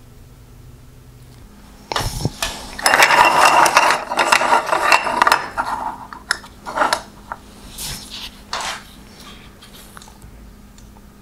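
Thin black sheet-metal LED mounting brackets being handled and set down on a wooden bench. About two seconds in comes a busy stretch of clattering and scraping metal, then a few scattered knocks as the plates are lined up.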